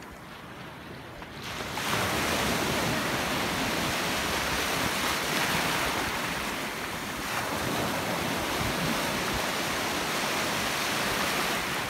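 Sea surf washing and breaking in the shallows, mixed with wind on the microphone. The noise swells suddenly about two seconds in and then holds as a steady loud wash.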